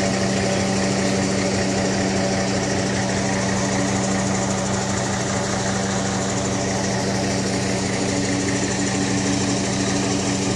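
A machine engine running steadily with an even, low hum.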